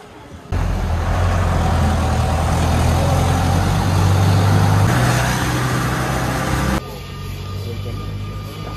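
A motor vehicle engine running steadily, with noise on top. Its pitch steps up about five seconds in, then the sound drops abruptly to a quieter steady hum near seven seconds.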